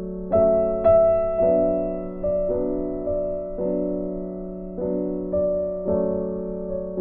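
Background music: a slow, gentle piano piece of held chords, each struck and fading, changing about once a second.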